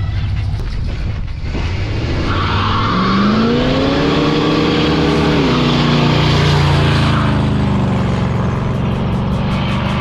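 Small-block 350 V8 of a 1969 Chevy Nova revving hard through a burnout, one rear tire spinning and squealing on the asphalt. The revs climb about three seconds in, hold high, then ease off near the end.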